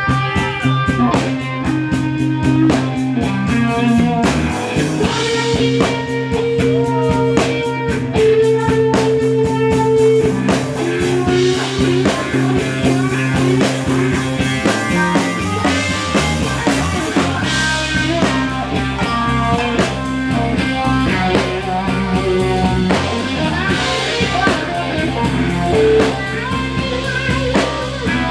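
Live band playing an instrumental passage, with no singing: drum kit and electric guitar over held sustained notes from a group that includes saxophone, trumpet and keyboard.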